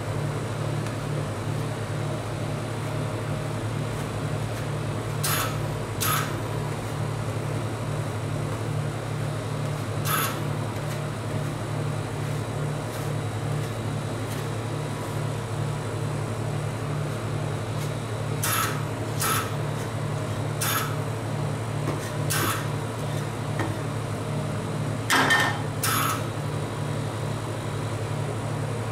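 Metal spatula spreading and scraping ice cream mixture thin across a frozen metal cold plate, with short sharp scrapes and taps every few seconds. Under it runs a steady low machine hum.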